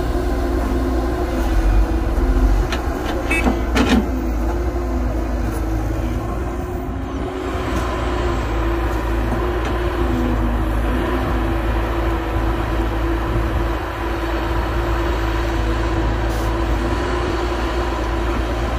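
Heavy diesel engines of an excavator and dump truck running steadily, with a few sharp clanks about three to four seconds in.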